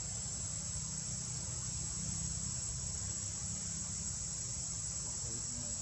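Insects chirring steadily in one continuous high-pitched drone, with a steady low rumble underneath.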